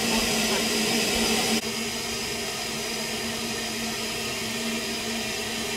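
Steady hiss of steam from a standing narrow-gauge steam locomotive, with a steady low tone beneath it. About a second and a half in it drops abruptly to a quieter, steady hiss.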